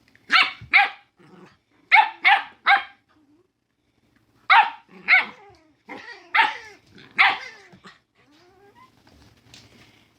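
A dog barking: about nine sharp barks in quick clusters of two or three, with short pauses between the clusters.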